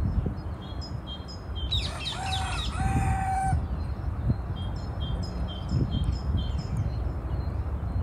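A rooster crows once, about two seconds in: a loud call of about a second and a half in two parts, the second part held on one note. A small songbird chirps repeatedly throughout.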